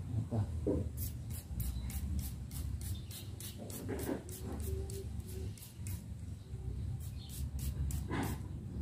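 Hand trigger spray bottle squirting a liquid onto plant leaves: a quick run of short spritzes, about three a second, with a short pause about two-thirds of the way through before the squirts start again.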